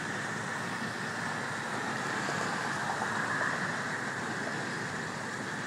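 Steady rolling noise of a CSX train passing at a distance, even throughout with no horn, bell or separate clanks.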